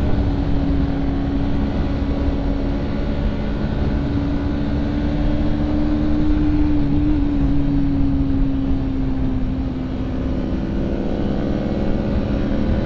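Motorcycle engine running at a steady cruising speed, heard from the rider's seat with wind rushing over the microphone; the engine note eases off about ten seconds in, and a rising note comes in near the end.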